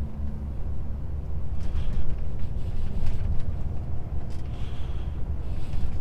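Low, steady drone of a truck's diesel engine and road noise heard inside the cab while driving, with a few short hisses.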